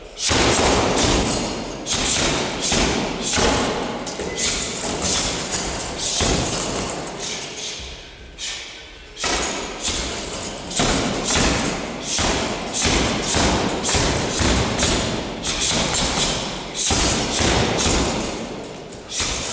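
Boxing-gloved punches and knee strikes thumping a small hanging punching bag in quick strings of blows, with a short lull about eight seconds in.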